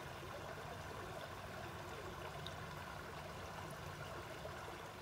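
A shallow creek running steadily over rocks.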